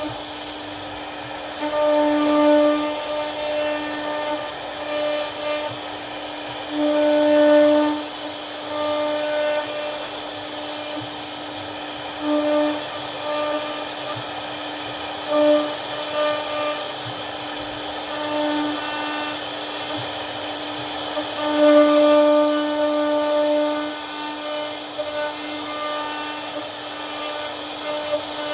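CNC router spindle running with a steady whine while its bit carves a wooden door panel. The sound swells louder every few seconds as the cut gets heavier.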